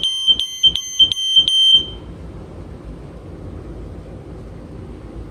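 Sears 302.57475 smoke alarm's horn sounding a shrill tone near 3.1 kHz (about G7), pulsing about three times a second. It cuts off a little under two seconds in.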